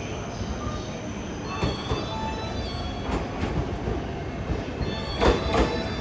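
E491 series 'East i-E' electric inspection train rolling slowly into the platform. Its wheels clack over rail joints in pairs, the loudest pair near the end, with a steady rumble and a thin high wheel squeal underneath.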